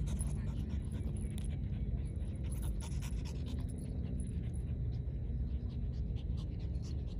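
French bulldogs panting hard while they play-wrestle and roll on the grass.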